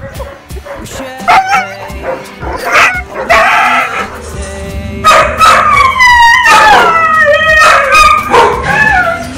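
Excited Siberian huskies yipping and crying, with music playing underneath.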